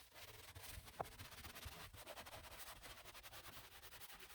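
Faint scrubbing of a truck seat with a cloth: a quiet, even rubbing hiss, with a small tick about a second in.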